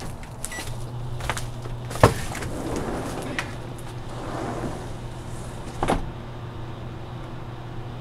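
RCA microwave oven started from its keypad with a short beep, then running with a steady low hum. Two sharp knocks sound, about two seconds in and again near six seconds.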